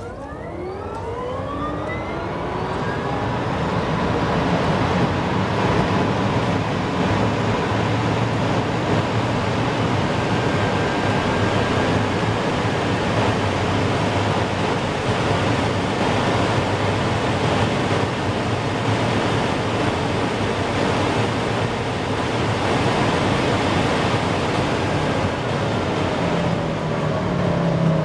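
Rimac Nevera's four electric motors whining under full throttle, the whine rising steeply in pitch over the first few seconds. The whine is soon buried under loud, steady wind and tyre noise at very high speed, heard inside the cabin. Near the end the whine falls in pitch as the car brakes hard.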